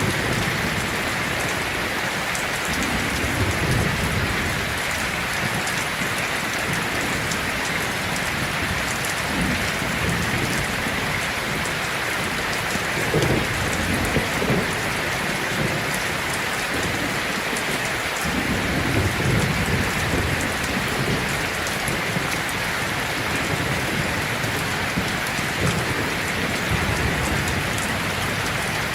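Heavy rain falling steadily on a tin roof, with low rumbles of thunder swelling up a few times, about three seconds in, near the middle, and again a few seconds later.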